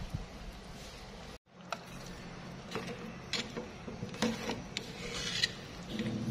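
A metal ladle clinking lightly against the side of a stainless-steel soup pot as it stirs and scoops the broth, a handful of separate clinks over a steady low hum.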